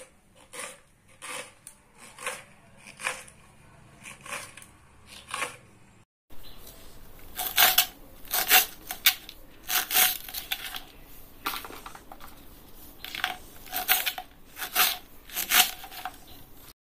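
Kitchen knife chopping green chillies into rounds on a wooden chopping board: a run of short knife taps on the board, about one or two a second, louder after a brief break about six seconds in.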